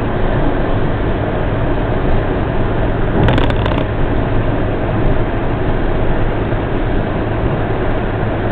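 Steady road-traffic noise, an even rushing sound, with a brief sharp clatter about three seconds in.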